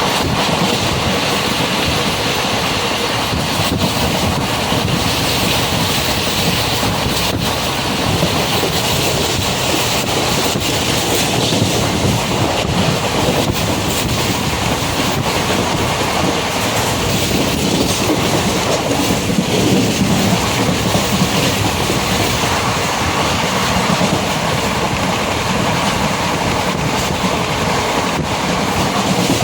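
Steady, loud rushing and rumbling noise, with a few faint clicks.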